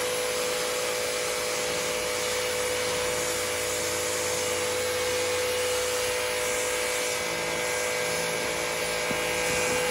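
Sun Joe 3200 electric pressure washer running steadily: a constant motor-and-pump hum under the hiss of the high-pressure water jet blasting a concrete floor.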